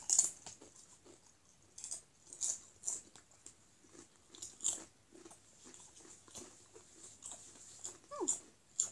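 Doritos tortilla chips being bitten and chewed with the mouth close to the microphone: irregular crunches a second or so apart.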